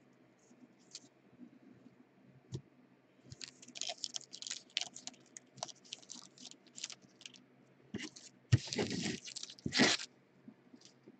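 Trading card pack wrapper crinkling in the hands with a string of short crackles, then being torn open in a longer rip a little past eight seconds in and a shorter one near ten seconds.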